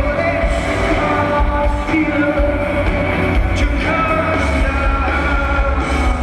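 Rock band playing live, with a lead singer's voice over a full band and steady heavy bass.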